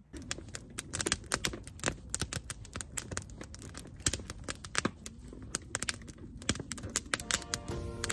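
Firewood burning in a metal fire pit, crackling with frequent irregular sharp pops and snaps. Music fades in near the end.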